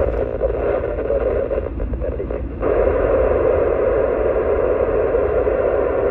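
Mobile FM radio's speaker hissing with static while receiving the AO-91 satellite downlink on 145.960 MHz, with no clear voice in it. The hiss dips briefly about two seconds in, then comes back a little louder, over the low rumble of the moving car.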